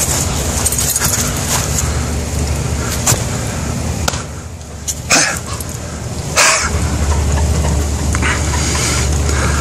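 A McNab dog making two short, breathy sounds, about five and six and a half seconds in, over steady background noise.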